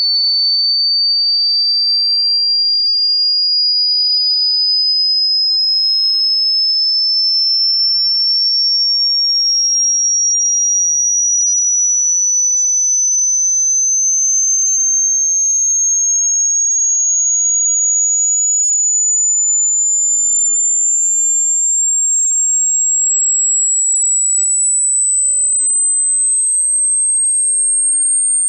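Hearing-test sine tone: a single high-pitched pure tone climbing slowly and evenly in pitch, about an octave over the half minute, at a steady level.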